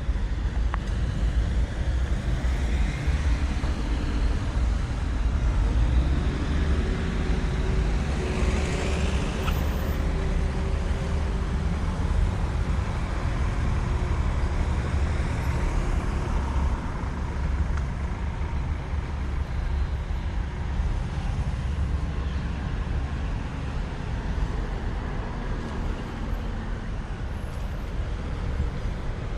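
Street traffic: motor vehicles running past, over a steady low rumble.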